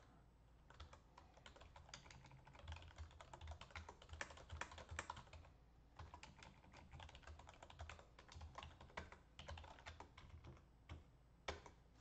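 Quiet typing on a computer keyboard: runs of key clicks with brief pauses.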